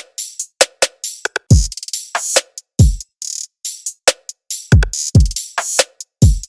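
Electronic drum-machine beat loop: deep bass kicks that drop quickly in pitch, with sharp, hissy high hits and short ticks in between.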